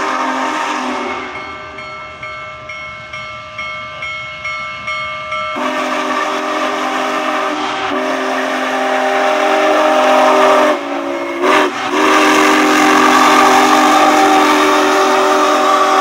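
Union Pacific Big Boy No. 4014 steam locomotive blowing its chime steam whistle: the tail of one blast, then a long blast, a short one and a final long blast, the grade-crossing signal. Between the first two blasts its bell rings in steady strokes. The final long blast is the loudest.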